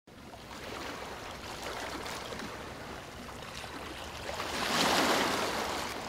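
Sea waves washing onto the shore, a steady rushing hiss that swells as a wave surges in about five seconds in, then eases off.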